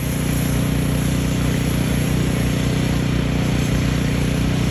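An engine running steadily at a constant speed, with an even, unchanging drone.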